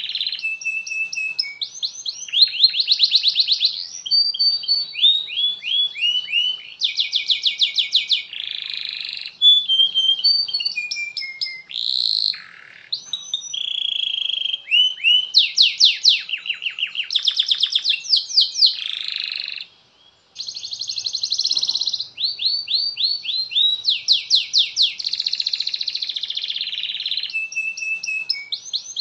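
Domestic canary singing a long, continuous song. It moves from one fast rolling trill to the next, each run about a second long with its own note type, and breaks off briefly about twenty seconds in before carrying on.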